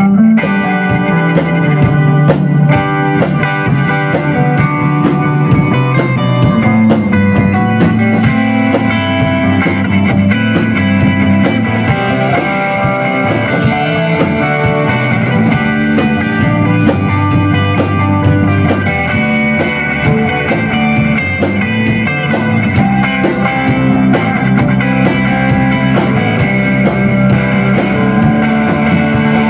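Rock band playing an instrumental passage with no singing: electric guitars over a drum kit keeping a steady beat.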